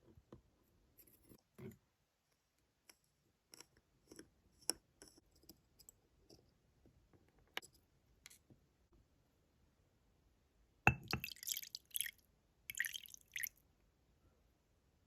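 Small watchmaker's tools clicking and tapping lightly against a pocket watch movement, a few scattered ticks at a time. Near the end come two short bursts of hissy, scratchy noise.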